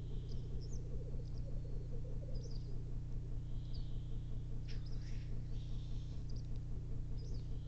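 Black grouse cocks displaying at a lek: a continuous low bubbling coo, with short hissing calls now and then and high chirps of small birds over it.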